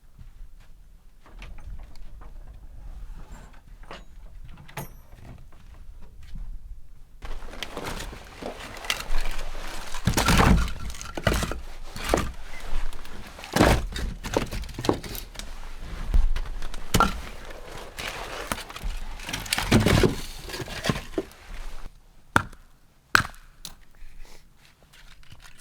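A series of heavy wooden thuds and knocks over steady rustling and handling noise in a small wooden room, with a few sharp knocks near the end.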